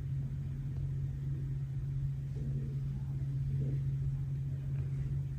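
A steady low hum at one pitch, with faint murmuring voices partway through.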